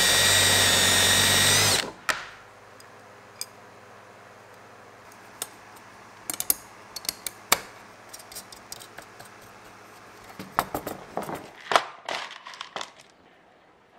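Drill spinning a countersink bit into an aluminum badge plate: a steady whine for about two seconds that then stops. After it come small, scattered metallic clicks and taps of metal parts being handled, with a cluster of sharper clicks near the end.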